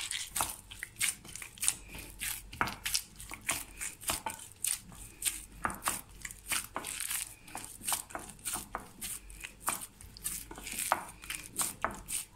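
Hands kneading wet wheat-flour dough in a glass bowl: a quick, irregular run of sticky squelches and slaps, several a second, as the dough is pressed and folded with a little water worked in.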